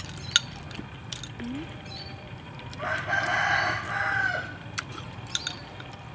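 A rooster crowing once, about three seconds in, a call lasting about a second and a half with a falling end. A few short clicks of metal spoons against bowls.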